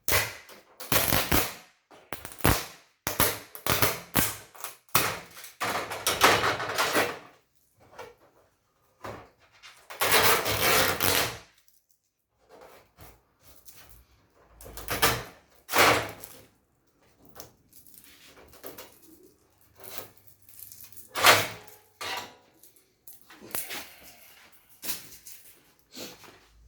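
Hands working inside an opened LED TV's backlight: irregular scraping, rustling and knocks, with a few longer rasping noises lasting about a second, the loudest of them about ten seconds in.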